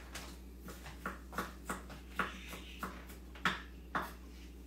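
Kitchen knife chopping onions on a cutting board: single knocks of the blade, roughly two a second and unevenly spaced.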